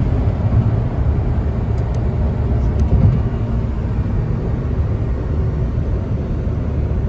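In-cabin sound of a Suzuki Wagon R's 660cc three-cylinder engine and car at about 100 km/h. The steady engine note fades out right at the start, leaving a low rumble of road and wind noise that slowly eases.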